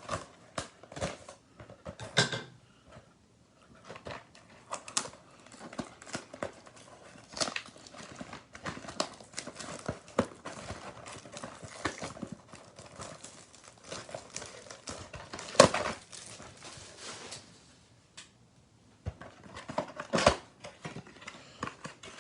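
A cardboard trading-card blaster box being opened and its packs handled: irregular cardboard and wrapper crackles and taps, with louder knocks about 15 seconds in and again about 20 seconds in.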